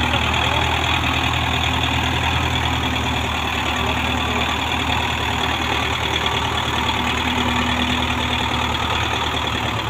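Diesel engine of a Russian-made farm tractor running hard under heavy load as it pulls a fully loaded sugar-cane trolley through mud. The drone is steady and loud throughout.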